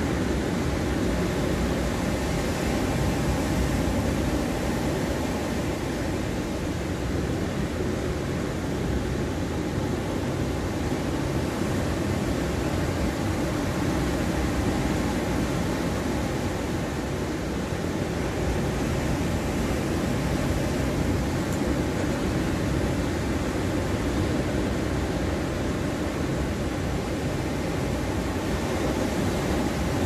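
Rough sea surf breaking along a sandy beach: a steady, continuous wash of waves with a strong low rumble, swelling and easing only slightly, with no single wave crash standing out.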